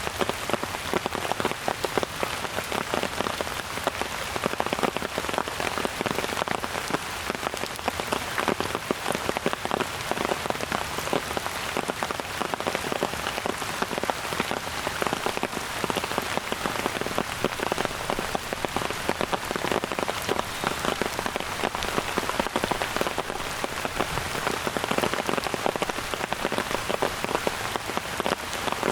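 Steady rain falling, a dense, even patter of countless small drops hitting surfaces.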